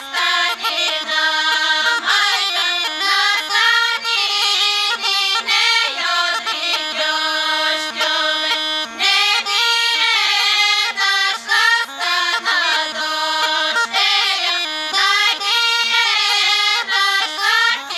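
A women's folk choir singing a Rhodope folk song together, in sustained phrases a few seconds long.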